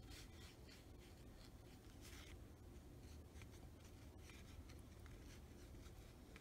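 Faint swishing and scratching of a Japanese calligraphy brush stroking across card stock in a series of short strokes, one a little stronger about two seconds in.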